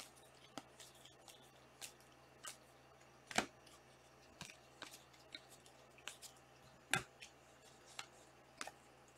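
Stiff chromium trading cards being handled and flipped one by one: a string of light, irregular clicks and snaps, about one a second. The loudest comes about three and a half seconds in and another near seven seconds.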